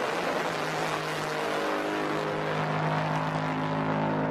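Speedboat engine running at high revs, holding a steady pitch, under a dense rush of water spray.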